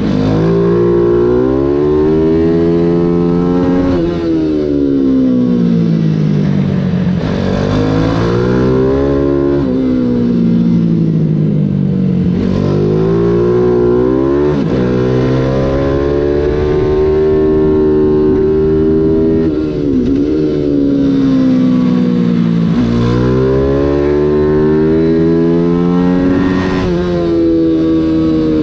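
Mini GP 140 race bike's engine, heard from on the bike, revving hard at racing pace. Its pitch climbs steeply through each gear, then sweeps down under braking into corners, over and over around the lap.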